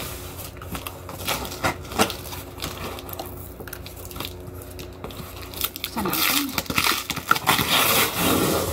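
Cardboard shipping box being opened by hand: packing tape peeled and torn from the flaps, with crinkling and scraping of cardboard. The tearing gets louder and busier over the last few seconds.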